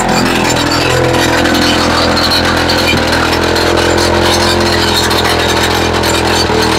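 Gasoline-powered YN30A rock drill's two-stroke engine running hard as the drill hammers into rock, a steady loud rattling drone whose pitch shifts slightly about three seconds in and again near the end.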